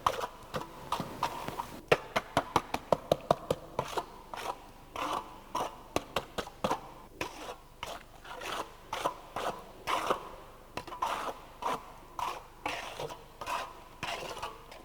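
Trowel scraping over fresh concrete in a test mould, smoothing the top surface in a series of short strokes, quickest in a run a couple of seconds in.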